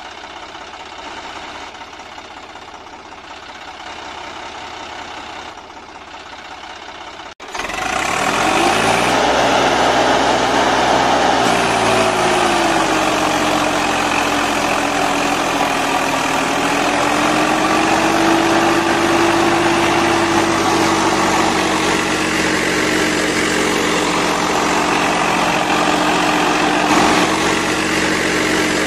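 Tractor engine sound running steadily with a low drone, starting abruptly about seven seconds in after quieter background noise. Its pitch dips, rises slightly and then holds.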